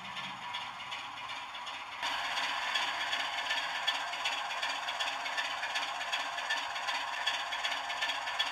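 Model train running on the layout's track, a steady clattering rattle of small wheels and motor that gets louder about two seconds in.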